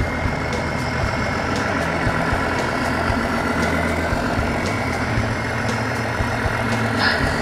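Recorded diesel truck engine sound played through the onboard speaker of a Tamiya Knight Hauler RC tractor's sound module, running at low revs with the engine note rising and falling as the model drives. Small clicks throughout and a short burst near the end.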